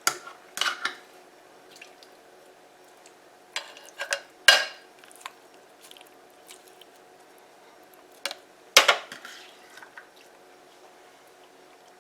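Raw chicken pieces being put into a ceramic slow cooker crock: scattered knocks and clatters, a few in a row about four seconds in and again near nine seconds, the loudest about four and a half seconds in.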